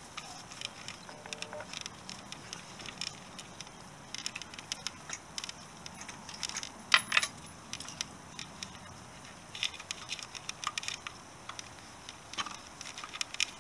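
Motorcycle wiring loom and its plastic crimp connectors being tugged and worked through the back of a headlight bowl: scattered small clicks and rattles, with a louder clack about seven seconds in.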